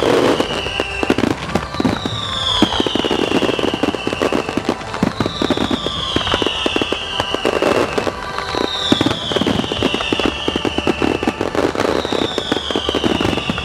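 Large fireworks display: many aerial shells bursting and crackling in rapid, overlapping succession, picked up on a camera's built-in microphone. A high falling tone sounds over it about every three and a half seconds.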